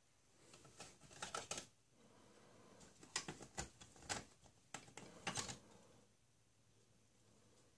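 Plastic surprise eggs and toy capsules clicking and clattering against each other as a hand rummages through a box of them, in several short spells of clicks that stop about six seconds in.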